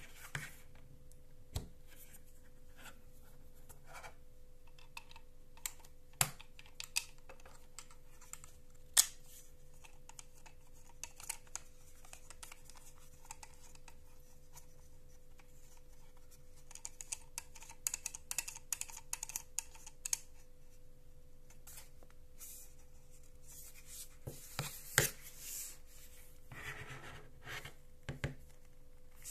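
Handling noise of a GoPro Hero10 being mounted on a GoPro Shorty extension pole: small plastic clicks and scrapes from the mounting fingers and thumbscrew, scattered through, with a run of quick clicks a little past the middle and louder knocks and a scrape near the end.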